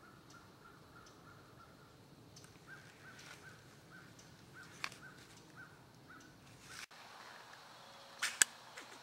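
Squirrel barking: a run of short, evenly repeated calls, about three or four a second, with a short break partway through. Near the end come two sharp cracks close together, the second much louder.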